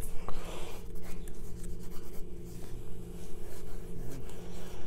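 Pencil sketching on paper: repeated scratchy graphite strokes as a head's proportions are blocked in, over a steady low hum.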